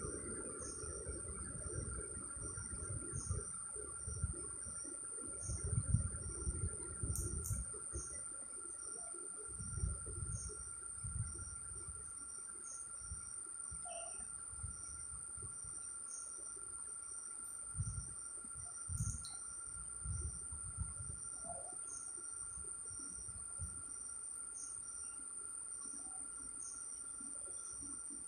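Crickets chirping: soft, regular chirps a little more than once a second over a steady high whine. Low bumps and rustles come and go through the first two-thirds.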